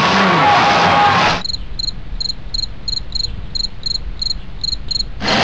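Demolition derby car engines revving for about a second, then an abrupt cut to crickets chirping, about three short high chirps a second, over a low rumble. Loud engine sound returns just before the end.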